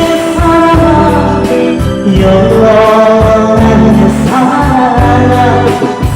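Live band music with a singer holding a sung melody over bass and drums.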